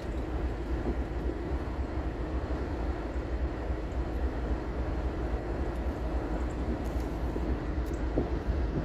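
Steady low rumble of road and wind noise from a moving car, with a faint steady hum above it.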